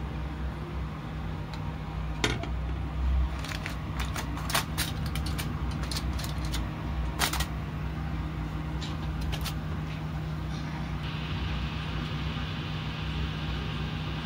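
Sharp clicks and knocks of a saucepan and a foil-lined dish being handled on a kitchen counter, clustered between about two and eight seconds in, over a steady low hum. A faint hiss comes in near the end.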